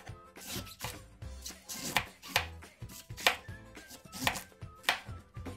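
Chef's knife chopping a head of green cabbage on a wooden cutting board: crisp cuts through the leaves, each ending in a knock on the board, about twice a second.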